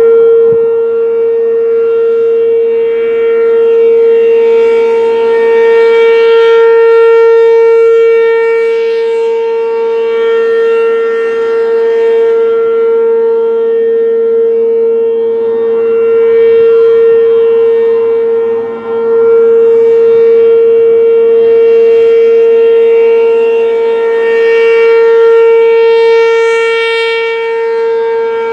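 ASC RM-127 outdoor warning siren sounding a steady single-pitch tone during a scheduled test, its loudness swelling and fading about every ten seconds, with a brief dip near the end.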